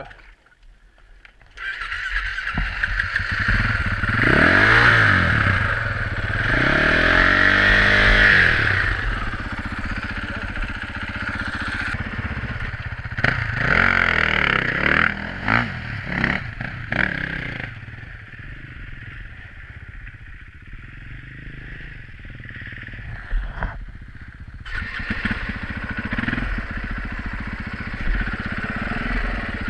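Dirt bike engine starting up loud about a second and a half in, revved up and down hard while the bike is worked through deep mud, then running at lower, varying revs as it rides on along the trail.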